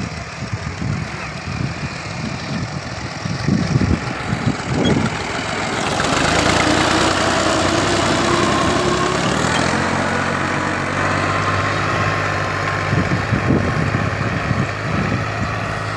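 New Holland Ghazi tractor's diesel engine running under load as it pulls a cultivator through tilled soil. It grows louder as the tractor passes close, about midway, then draws away.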